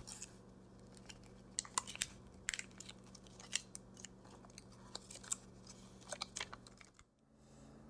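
Faint, irregular light clicks and taps of a knife slicing a block of non-silken tofu on a cutting board. The sound drops out briefly about seven seconds in.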